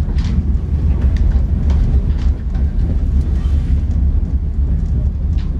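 Funicular car running down its track: a steady low rumble of the wheels on the rails, with scattered light clicks.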